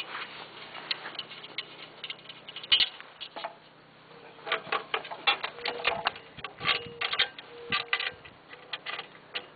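Irregular metal clicks and clacks from the hand-worked lift on a garden tractor's home-made plough hitch as the plough is raised and lowered. The clicking grows busier about halfway through, with a few short squeaks.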